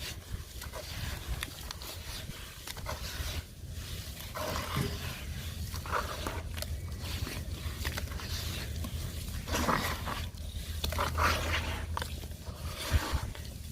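Sand-cement and sawdust crumbles being crushed and crumbled by hand: gritty crunching and scraping, swelling louder in two bouts, with a sharp click near the end.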